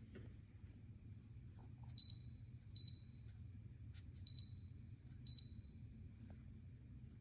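Sekaer SKE-840G travel electric kettle's control panel beeping: four short, high electronic beeps at uneven intervals, with a faint click between the second and third.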